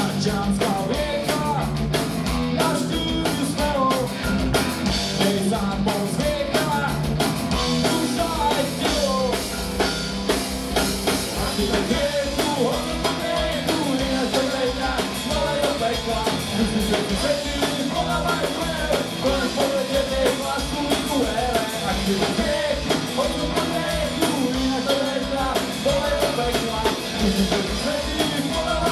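Punk rock band playing live at full volume: a drum kit, electric guitars and bass, with a sung or shouted vocal over them.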